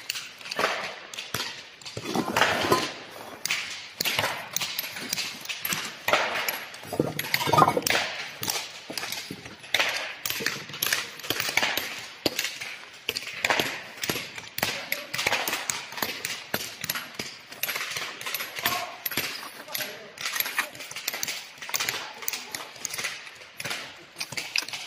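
Dense, irregular clicks and knocks, many hard short impacts in quick succession.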